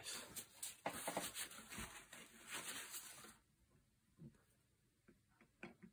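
Handling noise from a Yildiz 20-bore shotgun action as small metal parts are fitted by hand: about three seconds of rubbing and scraping with many small clicks, then a few faint clicks.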